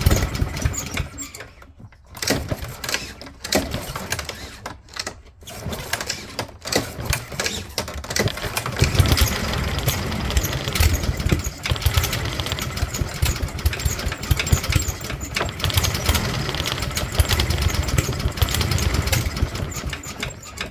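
Honda GCV160 lawnmower engine sputtering in short bursts with brief dropouts, then running unevenly from about eight seconds in. The uneven running is the fluttering RPM the owner can't explain, with the engine unable to rev above about 800.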